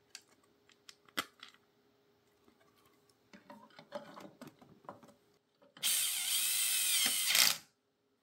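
Light clicks and knocks of hard 3D-printed plastic parts being handled, then a cordless drill runs loudly for about two seconds near the end, its whine shifting in pitch.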